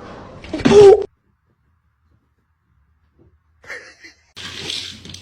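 A single short cat meow, then the sound cuts to dead silence for a couple of seconds before faint noise comes back near the end.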